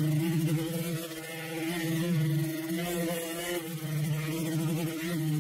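Electric power grinder running, grinding down cured thickened epoxy and a fiberglass core repair. It makes a steady motor buzz with a hiss over it, and its loudness wavers a little as it works.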